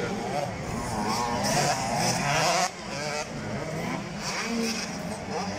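Motocross race engines revving across the track, their pitch rising and falling as the riders work the throttle, with a short dip in loudness about halfway through.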